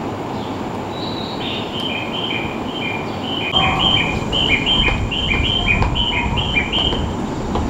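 A high two-note chirp, a higher note then a lower one, repeated steadily about three times a second. Partway through, the low rumble of a train at the platform rises beneath it.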